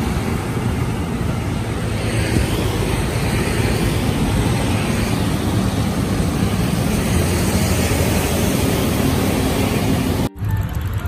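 Wind buffeting a phone's microphone on a moving bicycle: a loud, steady rushing with a fluttering low rumble, mixed with the noise of motorcycles and road traffic. It cuts off abruptly about ten seconds in.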